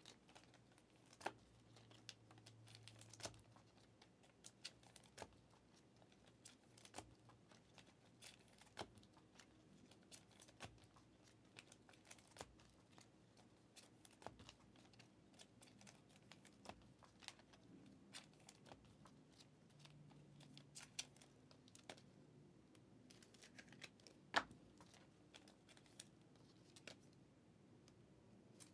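Faint handling of trading card packs and cards: wrappers tearing and crinkling, with scattered sharp clicks and ticks as cards are handled, over a faint low hum.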